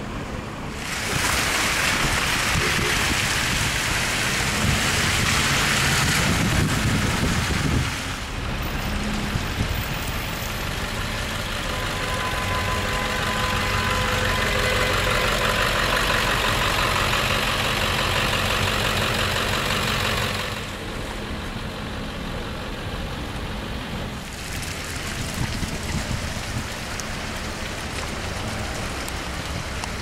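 Stalled traffic on a snowbound street: vehicle engines idling with a low steady hum, and two long stretches of louder hissing noise, one from about a second in to eight seconds, the other from about eleven to twenty seconds.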